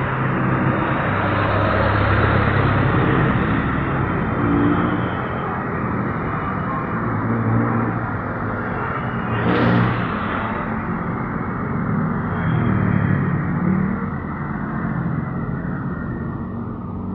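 Motor vehicle engine noise, continuous, its low pitch shifting up and down, with a brief louder swell about ten seconds in.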